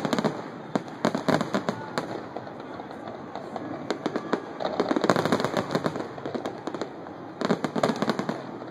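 Aerial firework shells bursting in rapid volleys, a dense run of bangs and crackling with brief lulls between the clusters.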